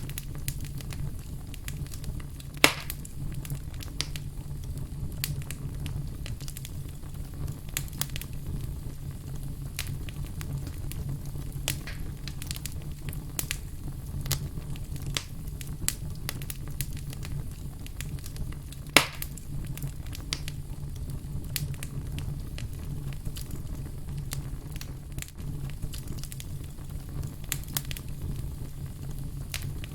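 Logs burning in a fireplace: steady crackling with many small pops over a low rumble, and two louder snaps, a few seconds in and again past the middle.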